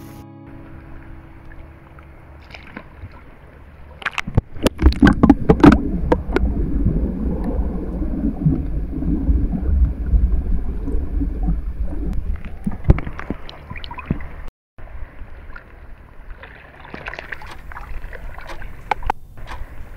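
Sea water around a phone held at the waterline: quiet lapping at first, then loud splashing about four seconds in as it goes under, followed by a muffled underwater rumble and gurgle. Lighter splashing and crackle near the end, once it is back above the surface.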